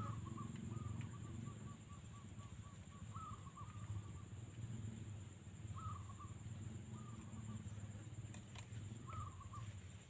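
Quail calling: a quick run of short clipped notes, about four a second, over the first few seconds, then single short rising calls every second or two.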